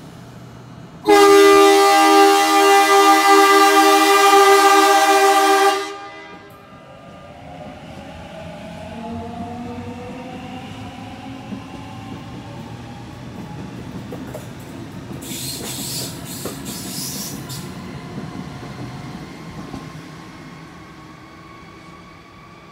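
A Sydney Trains Waratah electric train sounds one long horn blast of about five seconds, then pulls away, its traction motors giving a rising whine as it gathers speed over the rails. A brief hiss comes about fifteen seconds in.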